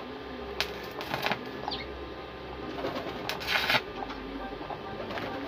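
Stick-welding arc crackling and sizzling in short bursts as tack welds are laid on a chair's thin steel tube frame, the loudest burst a little past the middle. Pigeons coo repeatedly in the background.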